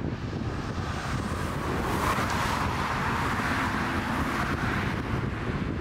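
Jet engines of a twin-engine narrow-body airliner whining as it lands, growing louder about two seconds in, over heavy wind buffeting on the microphone.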